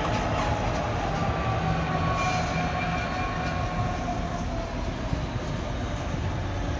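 Diesel trains running through the station: a steady low engine rumble with a faint whine that slowly falls in pitch. A DB Cargo Class 66 freight locomotive passes first, and a TransPennine Express Class 185 diesel unit approaches after it.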